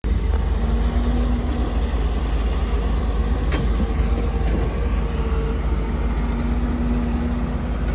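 Kobelco SK250 hydraulic excavator's diesel engine running with a steady low drone while it works, with a steady hum from the machine coming and going over it. A single sharp knock comes about three and a half seconds in.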